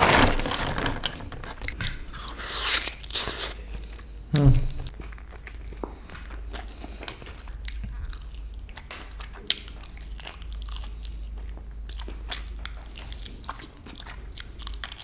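Close-miked eating of a barbecue-sauced, sesame-topped chicken wing: biting into it and chewing, a steady run of short clicks and mouth sounds, loudest near the start.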